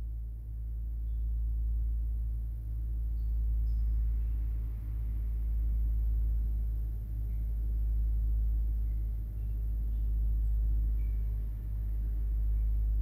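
Deep, low drone from the film's score, swelling and fading about every two seconds, with faint short high chime-like tones scattered over it.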